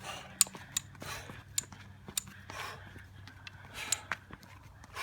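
Footsteps on a hiking trail: irregular sharp clicks of shoes on stones and scuffing on grit, as the walker steps sideways up the slope.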